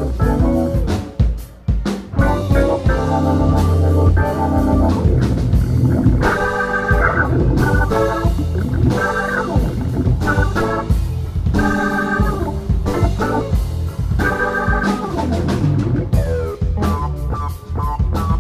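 Live band playing, led by an organ sound from a stage keyboard: held chords at first, then short rhythmic chord stabs, over electric bass.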